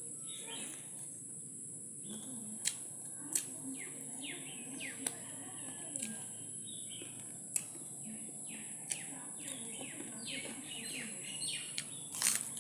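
Birds chirping in short, quick falling calls, busiest near the end, over a steady high-pitched hiss, with a few sharp clicks scattered through.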